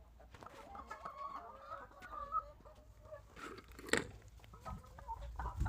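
Laying hens clucking in a poultry house, with a couple of sharp knocks about three and a half and four seconds in.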